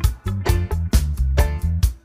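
Background music with a steady beat, drum hits and a bass line.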